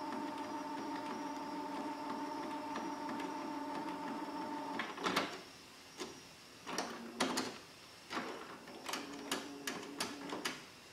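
Canon PIXUS iX6830 inkjet printer starting a nozzle check pattern print. A steady motor whir runs for about five seconds, then gives way to a string of clicks and short mechanical whirs.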